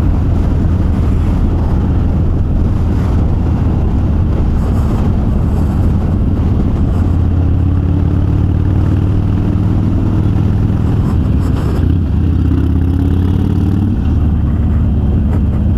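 Harley-Davidson Sportster's air-cooled V-twin running through Vance & Hines Twin Slash 3-inch slip-on mufflers with quiet baffles as the bike is ridden along, the exhaust note shifting with the throttle over a steady rush of riding noise.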